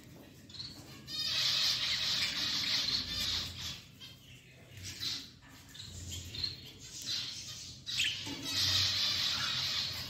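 Budgerigar chattering and squawking in two loud spells, one starting about a second in and lasting a couple of seconds, the other near the end, with shorter chirps between.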